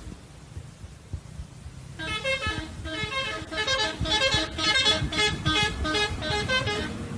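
A bus's multi-tone telolet horn playing a quick melody of short stepped notes, starting about two seconds in and lasting about five seconds, over a low rumble of road noise.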